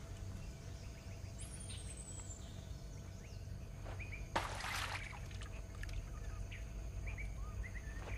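Forest ambience with scattered bird chirps and a high falling whistle early on the track; about four seconds in, a brief splash as something drops into a shallow stream.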